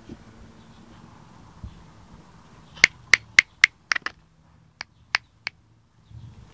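A quick run of sharp clicks, about four a second, then a short pause and three more spaced-out clicks.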